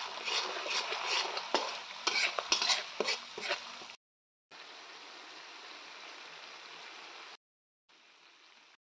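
Oil and ground spices frying in a metal wok while a steel spatula stirs and scrapes the pan with many sharp clicks. After a sudden break into silence about four seconds in, the oil sizzles steadily with no stirring, then more faintly.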